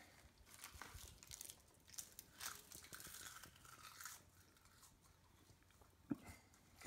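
Faint rustling and scraping of shoelaces being pulled through the eyelets and knotted on a sneaker, with a short sharp click about six seconds in.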